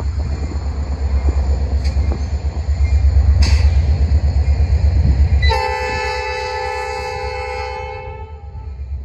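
A low rumble, then about five and a half seconds in the approaching Norfolk Southern locomotive's air horn sounds one long chord of several notes, held for about two and a half seconds.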